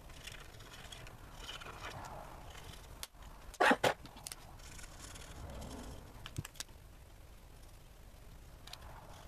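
Faint scratching of a Stampin' Blends alcohol marker colouring on cardstock in short strokes. A little over a third of the way in come two loud, sharp clicks, followed by a few smaller clicks.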